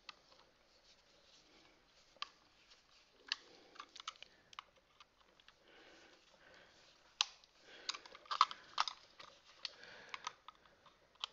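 Small screwdriver tightening the battery-cover screw on a plastic toy robot: scattered light clicks and taps of metal on plastic and handled plastic parts, with a busier cluster about eight seconds in.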